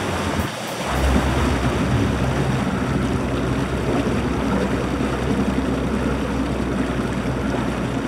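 Bass boat's outboard engine running with water rushing along the hull as the boat slows and settles off plane. A steady low engine drone comes up about a second in and holds.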